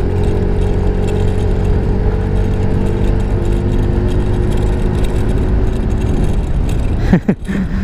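Yamaha Mio i 125 scooter engine running steadily while riding at cruising speed, with a low rumble underneath. A brief loud bump comes near the end.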